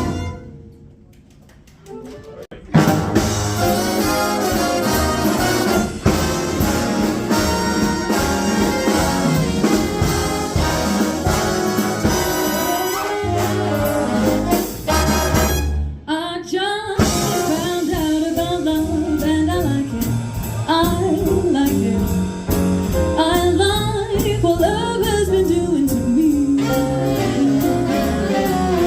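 Big band jazz with saxophones, trumpets and trombones. The band comes in sharply about three seconds in after a quiet moment, pauses briefly about halfway, and then a woman's singing voice enters over the band.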